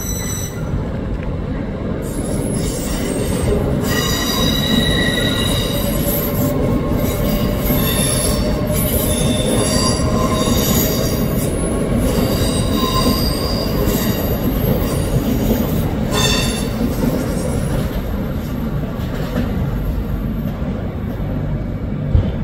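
A train's wheels squealing against the rails at Paddington, in high-pitched on-and-off squeals from about two seconds in until about seventeen seconds in, over a steady low rumble of the train.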